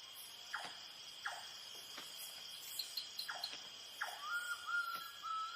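Night rainforest insect chorus: a steady high cricket trill. A few short downward-sweeping calls break in, and a wavering whistled note enters near the end.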